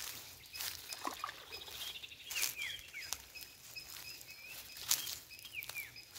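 Water dripping and splashing off a wet nylon cast net as it is hauled in by hand through shallow water, in a string of short irregular splashes. Birds chirp in the background with several short downward-sliding calls.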